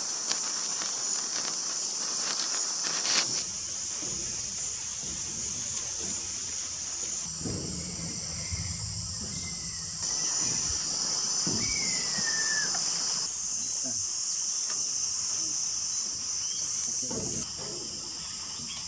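Steady high-pitched insect chorus of crickets or katydids, its strength shifting every few seconds as callers start and stop. About twelve seconds in, a faint whistled note slides down.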